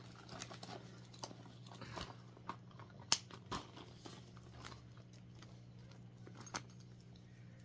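Handling of a leather-trimmed handbag and its plastic packing: soft rustling with a few sharp clicks and taps, the loudest about three seconds in, over a faint steady low hum.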